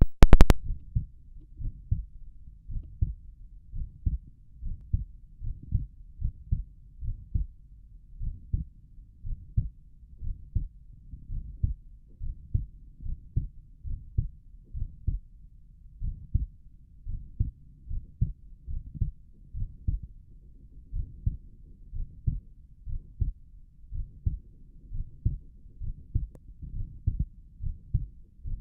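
A human heartbeat heard through a stethoscope on the chest: a steady rhythm of low, muffled lub-dub beats, each a pair of thumps. There are a few loud clicks at the very start.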